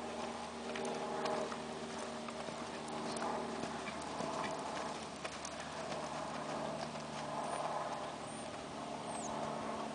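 Horse's hoofbeats in a canter on soft arena sand, over a steady low hum.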